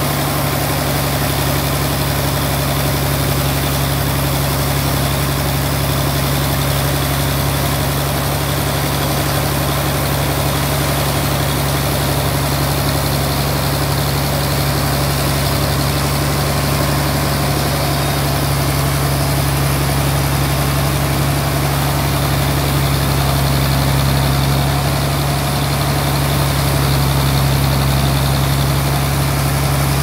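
Engine-driven sawmill band saw running steadily while it cuts lengthwise through a large hardwood slab fed on a carriage: a constant low engine hum with the whirr of the blade over it, getting slightly louder near the end.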